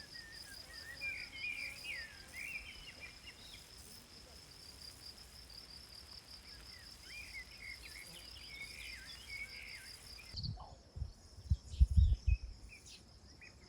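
An insect's steady, rapidly pulsing high trill with scattered short bird chirps. The trill stops abruptly about ten seconds in, and a few low thumps follow, the loudest sounds here.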